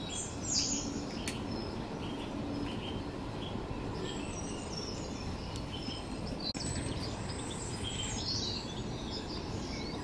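Small birds chirping and singing in the background, short high calls scattered throughout, over a steady low outdoor noise.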